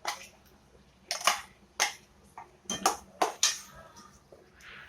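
A metal spoon clinking and knocking against a cooking vessel, about half a dozen sharp strikes, one left ringing briefly near the middle. It sounds like ground pepper paste being scraped and tapped out into the kulambu.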